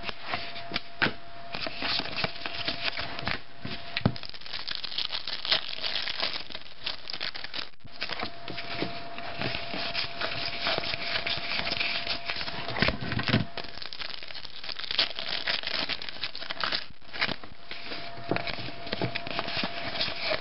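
Trading cards being flipped through and handled, with a foil pack wrapper crinkling: a continuous rustle full of small clicks and snaps.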